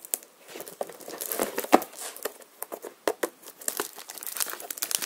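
Packaging of a boxed Banpresto prize figure being worked open by hand: irregular crinkling and tearing with small clicks, getting busier near the end. The box is being harder to open than expected.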